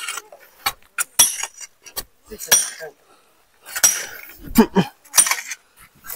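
Metal digging tools (hoes, shovels and iron bars) striking rocky soil and stone, giving irregular sharp metallic clinks and scrapes, each ringing briefly.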